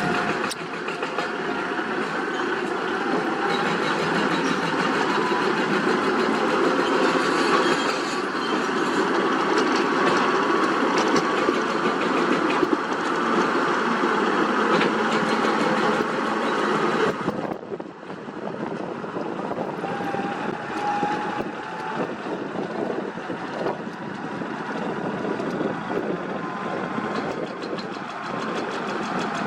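Heavy diesel earthmoving machinery running and working steadily, with many small clicks and knocks through the engine noise. About two-thirds of the way in, the sound drops abruptly and becomes duller, then carries on.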